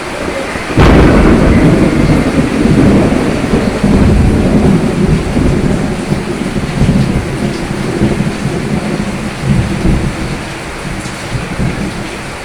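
Rain falling steadily with a clap of thunder about a second in, its deep rumble rolling on and slowly dying away.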